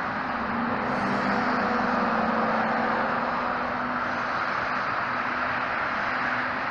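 Steady traffic noise from a four-lane dual carriageway: the tyre rush of passing cars and lorries, swelling slightly about a second in, with a low lorry engine hum under it.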